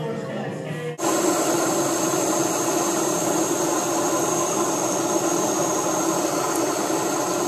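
Music for about the first second, then a handheld butane blowtorch on a gas canister burning with a steady, even hiss.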